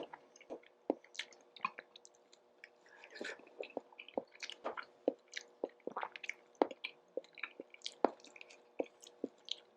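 Close-miked chewing and wet mouth sounds of someone eating instant ramen: irregular soft clicks and smacks, several a second.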